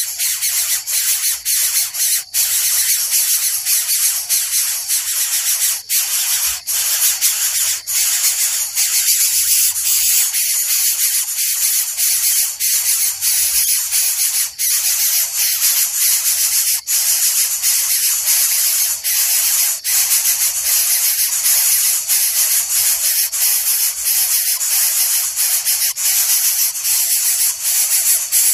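Coucal making a continuous loud rasping hiss, like a begging call kept up even with food in its mouth, broken only by a few brief gaps.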